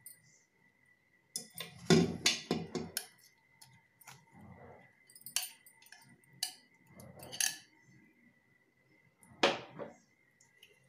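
Glass bowl and wire whisk knocking and scraping against an aluminium pressure cooker as thick semolina batter is poured and scraped in: a run of irregular clinks and knocks, with a faint steady high tone behind them.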